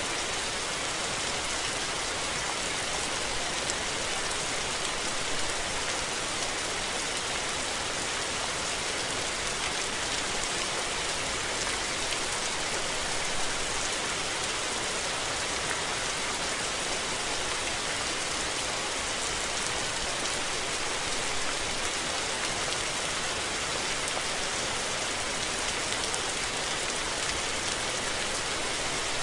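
Steady rain falling and pattering on surfaces, an even hiss with no thunder.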